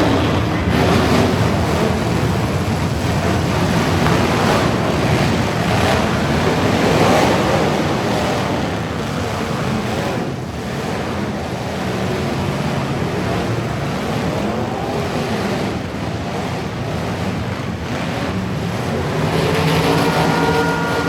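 Loud, steady rushing noise of heavy vehicles, with an engine rising and falling in pitch now and then. A horn comes in near the end.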